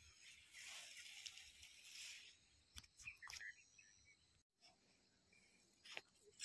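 Near silence with faint rustling of leafy plants in the first couple of seconds, then a few soft clicks.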